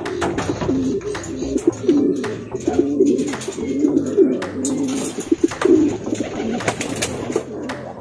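Racing pigeons cooing, several overlapping, a continuous low throaty burble, with sharp clicks and knocks scattered through it.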